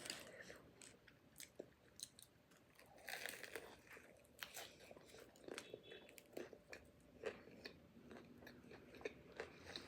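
Close-miked chewing of a fried samosa with a lamb filling: quiet, scattered wet mouth clicks and small crunches of the pastry, a little louder about three seconds in.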